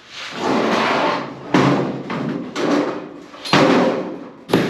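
Clattering and scraping of sectional garage door panels being taken off and handled, in several short bursts, with sharp knocks about three and a half and four and a half seconds in.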